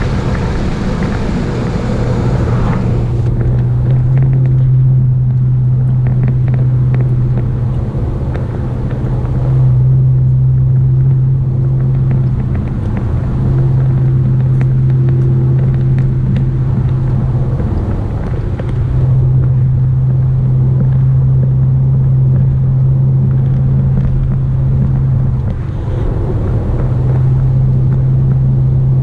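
Car driving: a steady low engine drone that drops away briefly and comes back several times.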